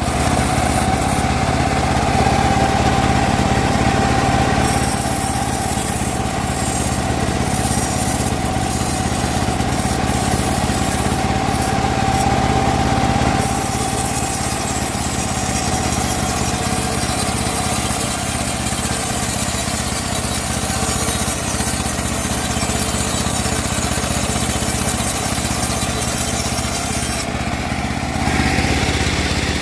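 Homemade band sawmill running steadily, a motor drone with a constant whining tone over it, as it saws teak wood.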